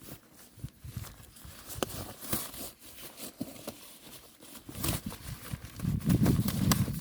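Irregular rustling and crinkling with scattered sharp clicks, and a denser run of low thumps near the end.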